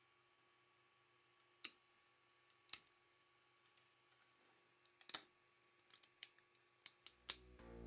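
Sharp, irregular clicks and taps of a hard 3D-printed plastic part being handled and fitted together, a few at first and coming closer together in the second half. Music fades in near the end.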